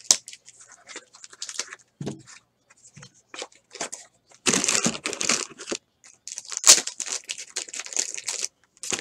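Clear plastic wrap on a trading card box being torn open and crinkled off, with light taps and clicks of handling first. The crinkling comes in two loud stretches, about halfway through and again near the end.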